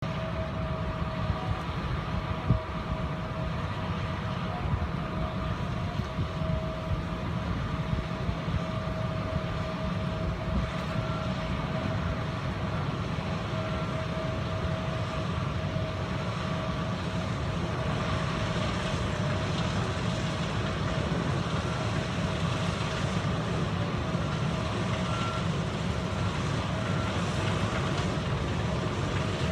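Combine harvester cutting soybeans: a steady engine drone with a constant whine over it. Two runs of short, evenly spaced beeps come through, one near the middle and one near the end, and there is a single sharp knock about two and a half seconds in.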